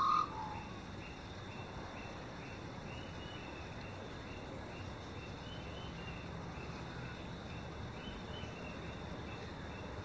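The last warbling notes of an Australian magpie's call in the first moment, then a faint, steady outdoor background with a soft, regular run of small distant calls, about two or three a second.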